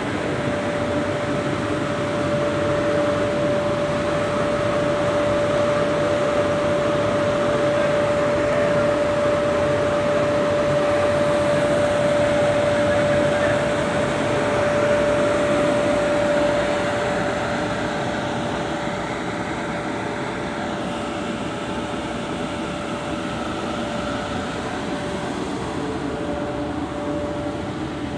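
Rotogravure printing machine's hot-air dryer blower running: a steady fan rush with a steady mid-pitched whine, louder in the first half and easing off after about seventeen seconds.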